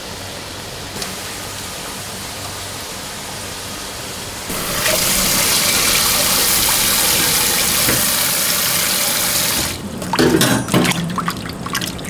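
A pan of water at a rolling boil, bubbling with a steady hiss. About four and a half seconds in, a cold tap starts running hard into a stainless steel bowl of water and runs for about five seconds, then stops. Near the end, hands splash and swish blanched butterbur stalks around in the bowl of water.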